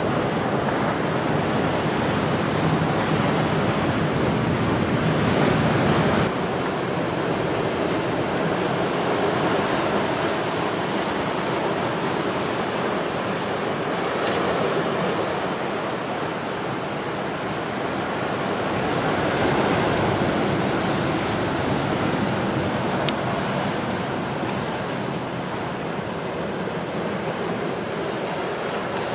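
Ocean surf breaking and washing over a rocky shore after a storm, a steady rushing that swells and eases slowly. The low rumble drops away sharply about six seconds in.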